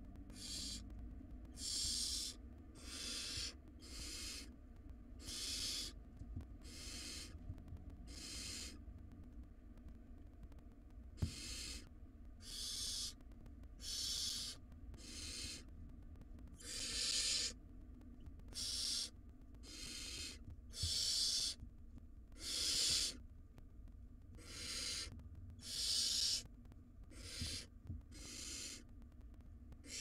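Barn owl nestlings hissing: a long run of hiss calls, each half a second to a second long, coming about once a second, with a short pause in the middle. A single sharp knock sounds just after the pause.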